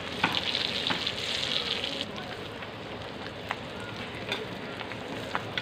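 Seer fish (vanjaram) slices frying in foaming sesame oil on a dosa tawa: a steady sizzle with scattered sharp pops, the hiss strongest in the first two seconds.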